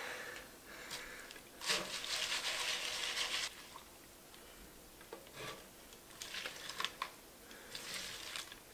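Cooked ramen noodles dropped from a glass bowl into a frying pan of bacon and warm bacon fat, with a hiss lasting about two seconds as they land. Metal tongs then click and scrape against the pan as the noodles are tossed.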